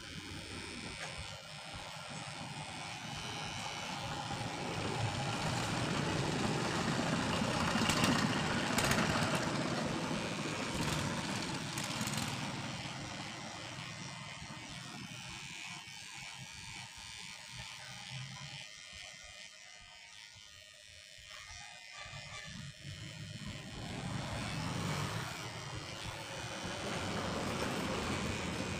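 Passing road traffic: engine and road noise swells to a peak about eight seconds in, fades away, then builds again near the end.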